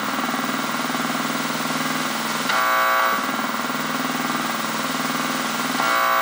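Buzzy square-wave synthesizer drone, steady and rich in overtones. A brighter, higher tone swells in on top of it twice, about three seconds apart, each lasting about half a second.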